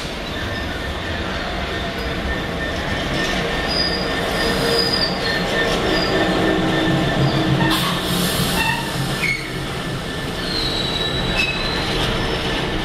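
Freightliner Class 66 diesel locomotive, with its two-stroke V12 engine, passing at speed at the head of a container freight train, followed by the steady rumble of the container wagons' wheels on the rails. Short high wheel squeals come several times.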